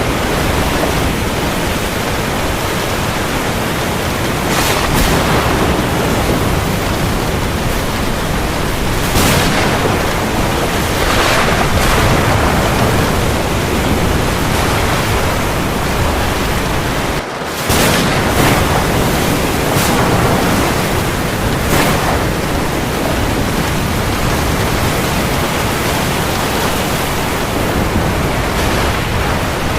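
Steady, dense rain hiss, as of heavy rain falling on the sea, swelling louder every few seconds in surges. About two-thirds of the way through it drops out for a split second, like a splice.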